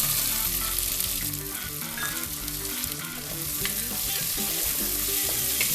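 Green peas and sliced onions sizzling as they fry in hot ghee in a pressure cooker, with a few clicks from stirring.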